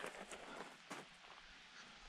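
Faint footsteps on a hiking trail: a few soft steps over a low hiss.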